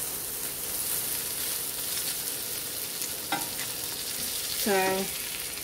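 Omelette sizzling in a frying pan while a spatula and fork push and fold it, with a short click about three seconds in.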